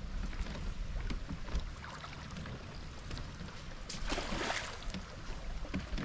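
Water moving around a bamboo river raft, with low wind rumble on the microphone and a brief rushing swish about four seconds in.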